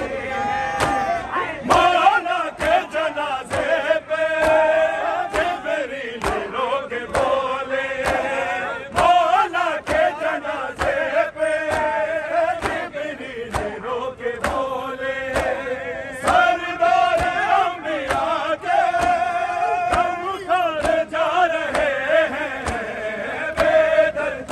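A group of men chanting a noha, a Shia mourning lament, in unison behind a lead voice, with chest-beating (matam) slaps in a steady rhythm, about three every two seconds.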